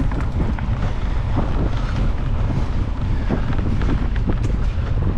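Steady low rumble of wind buffeting the microphone of a mountain bike ridden fast down a dirt singletrack, with scattered clicks and rattles from the bike over the trail.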